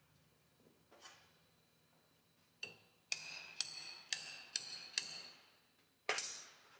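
Ball-peen hammer striking a sleeved steel punch, driving a slotted spring pin into a shift fork of a Borg-Warner T18 transmission's steel top cover: six sharp metallic taps about two a second, each ringing briefly, starting a little before the middle. Near the end comes one louder clank with a longer ring.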